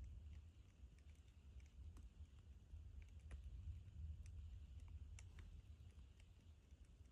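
Faint, scattered light clicks and taps over a low steady hum, close to silence.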